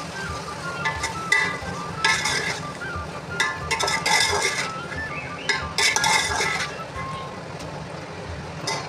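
Metal spoon stirring and scraping a frying beef masala in an aluminium pot, with clinks and sizzling in several bursts. Soft background music with a melody plays along.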